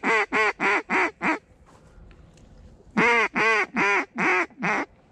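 Mallard duck call blown in two quick runs of loud quacks, about four a second, the first ending about a second and a half in and the second, six quacks, starting about three seconds in. It is a comeback call, sent after ducks that are flying off to turn them back toward the decoys.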